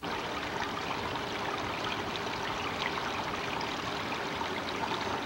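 Small backyard pond waterfall: water splashing and trickling steadily into a lily pond, with a dense patter of small droplets.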